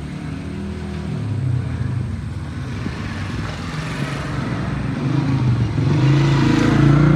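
Motor vehicle engine running steadily with a low hum, growing louder about six seconds in.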